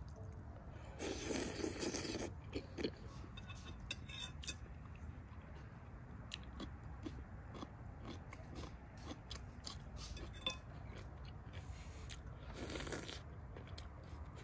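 Close-up eating sounds: chewing and biting into beef ribs and bread, with a crunchy bite about a second in and another near the end. Small sharp clicks of a fork against a china plate come and go throughout.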